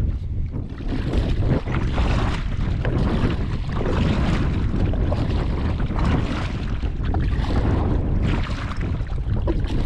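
Wind buffeting the microphone, a steady, loud rumble.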